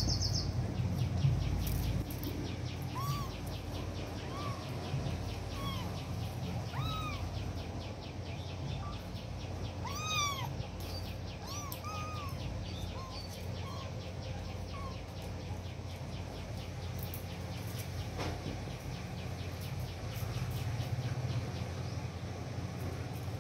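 Kittens mewing: about a dozen short, high, arching mews, most of them between about 3 and 15 seconds in, over a steady low hum.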